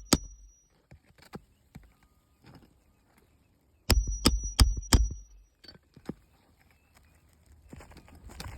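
Four quick, sharp metal tool strikes on an asphalt shingle roof, about three a second, a few seconds in, with a faint high ring over them. Softer scraping and tapping follows near the end, from work loosening the nails of a damaged shingle.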